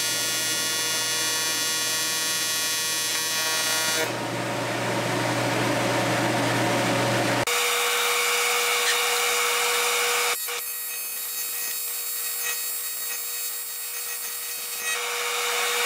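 AC TIG welding arc on aluminum plate, a steady buzz with a hiss over it, changing pitch abruptly about halfway through and again a few seconds later. The torch is heating 7075 aluminum plates so that Alumaweld aluminum brazing rod melts onto the joint.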